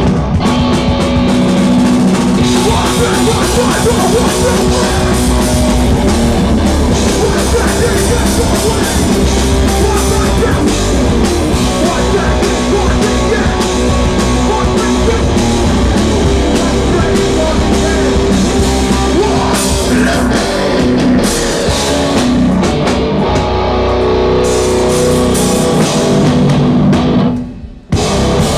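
Hardcore band playing live: distorted electric guitars, bass and a drum kit, loud throughout. Near the end the band stops dead for a moment, then crashes back in.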